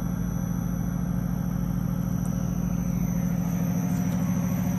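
Electric drive motor and gearbox of a sigma kneader extruder's discharge screw running steadily in reverse with the chamber empty: a constant hum with a faint high whine above it.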